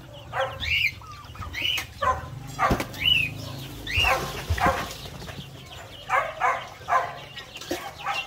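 Young poultry peeping and clucking, short arched calls about once a second, with a couple of short thumps.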